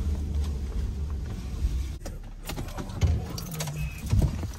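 Low in-cab rumble of a pickup truck on the move, which falls away about two seconds in and is followed by a scatter of short clicks and knocks.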